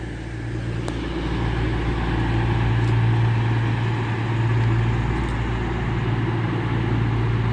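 Diesel train engines idling: a steady low drone with a broad hiss over it, swelling slightly a few seconds in.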